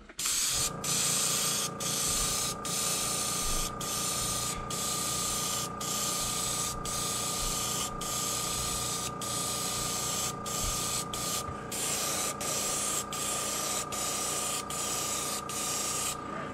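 Gravity-feed airbrush spraying paint with a steady hiss of air. The trigger is let go for a split second about every half second to second, which makes short breaks in the hiss.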